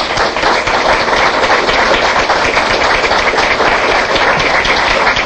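Audience applauding: many hands clapping at once, a dense steady patter.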